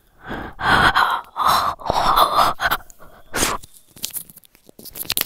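ASMR mouth sounds close to a phone microphone: a run of about six breathy puffs and gasps, followed by a few small clicks.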